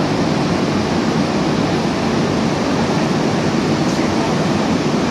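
Steady, even rushing hum of a Hanshin 5000 series electric train standing at an underground platform with its doors open, its idling equipment heard together with the platform's ventilation noise.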